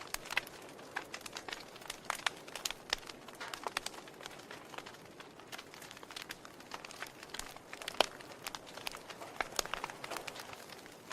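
Wood fire crackling in a fireplace: irregular sharp pops and snaps over a soft hiss, with one louder pop about eight seconds in.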